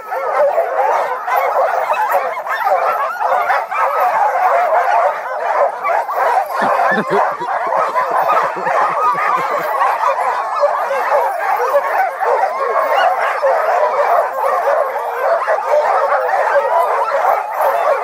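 A team of harnessed sled dogs barking and yelping all at once in a dense, unbroken chorus: the excited clamour of dogs eager to start running.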